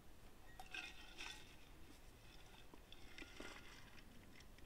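Faint clinking and rattling of camp cookware being handled, with light clinks about a second in and again around three seconds in.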